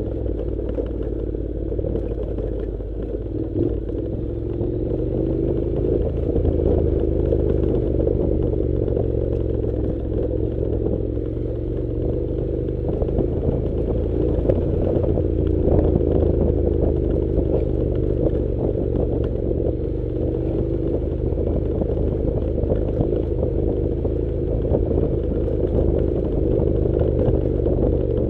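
Honda NC700's parallel-twin engine running steadily while the motorcycle rides over a rough dirt track, its note rising and falling a little, with clattering and rattling from the rough ground.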